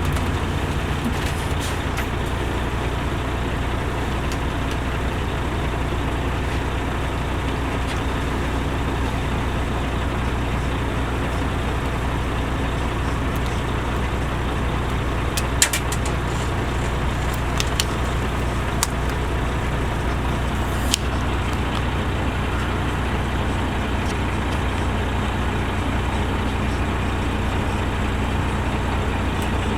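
Caterpillar C13 diesel engine of an MCI D4500CL commuter coach running steadily, a low even drone, with a few short clicks around the middle.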